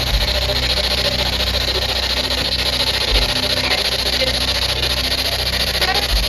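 P-SB11 spirit box sweeping through radio stations, giving a continuous loud hiss of choppy static over a low steady hum.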